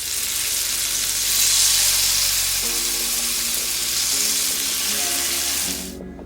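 Chicken malai tikka frying in hot oil: a loud, steady sizzle that fades out near the end, over soft background music.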